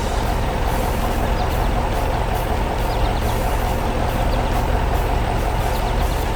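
Heavy truck engine running steadily at an even pitch.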